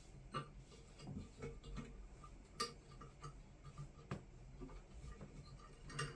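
Scattered light clicks and ticks of 18-gauge copper wire being bent and twisted by hand, at an uneven pace, with the sharpest click about two and a half seconds in.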